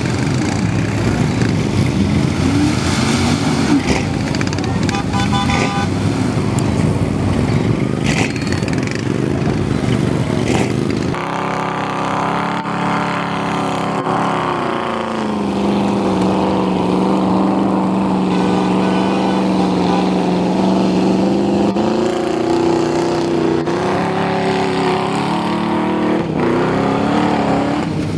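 Mud-bogging truck engines running hard under load, a dense noisy engine din for the first ten seconds or so. After a sudden change about eleven seconds in, a single engine is heard clearly: its pitch drops, holds steady for several seconds, then rises and wavers again as the revs change.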